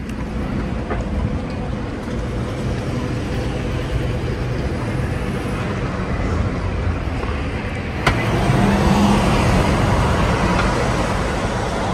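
City street ambience: a steady wash of road traffic noise from passing vehicles, stepping up louder about eight seconds in.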